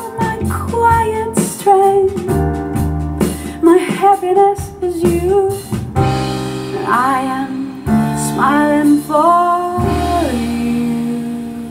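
A slow vocal song, with a woman singing over piano, played from a vinyl record through hi-fi loudspeakers. She ends a phrase on a long held note, and the music fades down near the end.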